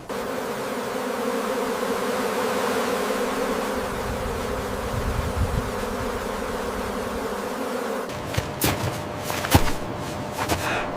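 A swarm of honeybees buzzing steadily around the cliff comb, cutting off abruptly about eight seconds in. A few sharp knocks or clicks follow near the end.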